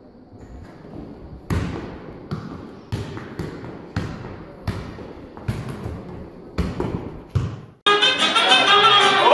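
A football thumping about ten times at uneven intervals as it is juggled off the body and drops to the floor, each thud with a short echo. About eight seconds in, loud Latin-style dance music cuts in suddenly.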